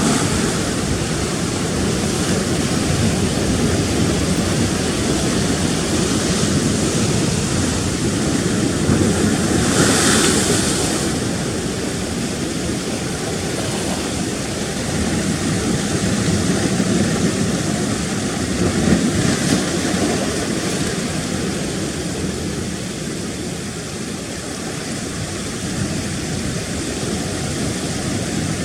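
Choppy sea surf washing and breaking in a continuous rush. It swells and ebbs, and one wave breaks more loudly about ten seconds in.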